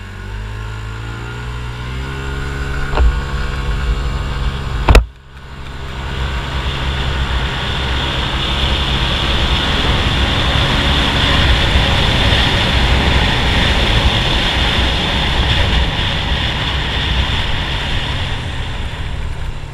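150 cc scooter's single-cylinder engine pulling away, its note climbing as it speeds up. A sharp click about five seconds in, then loud wind rush on the microphone over the steady engine drone at cruising speed.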